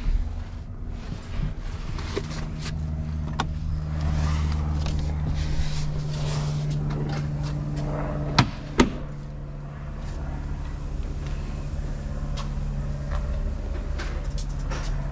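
Ford 6.7-litre Power Stroke V8 turbodiesel running at a steady idle, with two sharp clicks half a second apart about eight seconds in.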